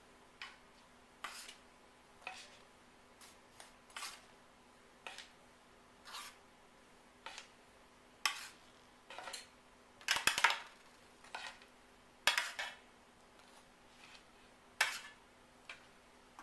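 Clinks and short scrapes of kitchenware as baked biscuits are lifted off a baking sheet onto a serving platter one after another, about twenty separate sounds, busiest and loudest about ten to thirteen seconds in. A faint steady hum lies underneath.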